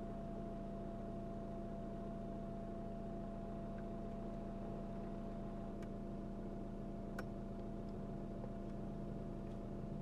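A vehicle engine idling steadily, a constant mechanical hum with a couple of faint clicks about six and seven seconds in.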